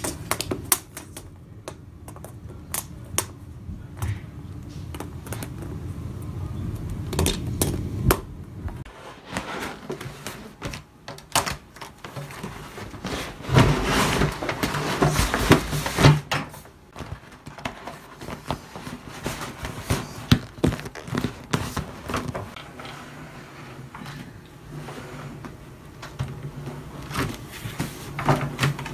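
Stiff vinyl contact-paper sheet being handled and smoothed down onto a desk top: crinkling and rustling with scattered clicks and knocks, louder and denser for a couple of seconds about halfway through.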